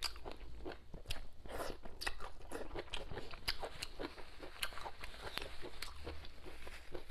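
A person chewing a mouthful of food with the mouth closed, making many small, irregular clicks and smacks.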